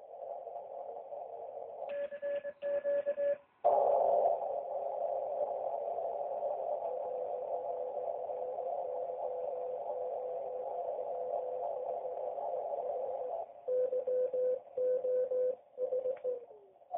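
Icom IC-706 transceiver's receiver audio through a narrow CW filter: a band of hiss with Morse code tones keyed on and off at about 2 seconds in and again near the end. Between them a louder, steady noise comes in suddenly at about 4 seconds and holds for about ten seconds.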